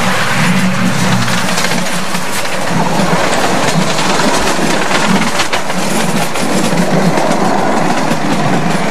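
Miniature ground-level railway train running, heard from on board: a steady rumble with the wheels clicking over the rail joints.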